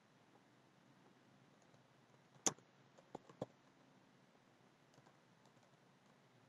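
A few computer keyboard key clicks against near silence: one sharper click about two and a half seconds in, then three weaker ones within the next second.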